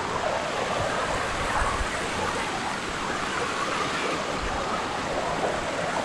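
Shallow stream water rushing steadily over rocks below a small waterfall.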